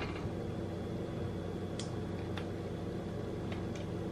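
Steady mechanical hum, like a fan or appliance motor, with a few faint light clicks.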